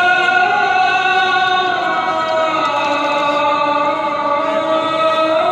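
A single man's voice chanting Islamic style over loudspeakers, drawing out one long melismatic line that shifts slowly in pitch, with a faint crowd hum beneath.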